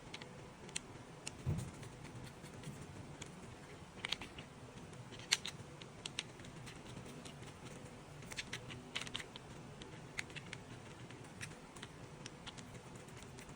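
Light, scattered clicks and taps of plastic toy vehicle parts being handled and fitted together, with a soft thump about a second and a half in.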